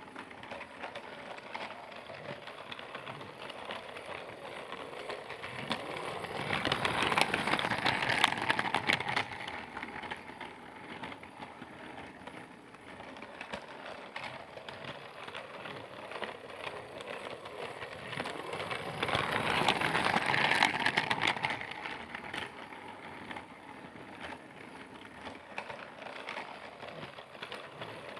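A Percy toy train running around its track with a steady rolling rattle of small wheels. It grows louder twice, each time with a burst of dense clicking, as it passes close by.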